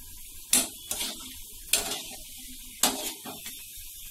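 A steel ladle knocks three times, about a second apart, against an aluminium kadai as bondas are turned in hot oil. A faint, steady sizzle of frying runs underneath.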